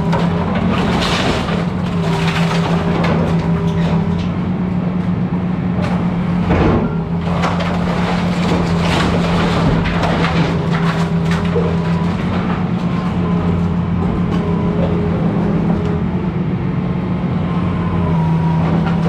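Excavator diesel engine running steadily under load while the machine breaks up a house, with irregular cracks and crunches of splintering timber and debris, the biggest crash about a third of the way in.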